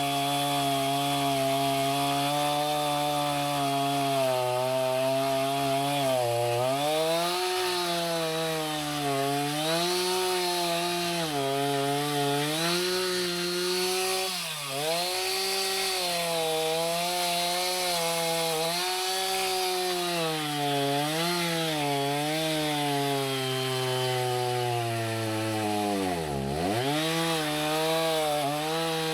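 Two-stroke chainsaw running under load, cutting through a dead white oak log, its engine pitch rising and falling as the chain works the cut. Near the end the revs drop sharply and pick back up.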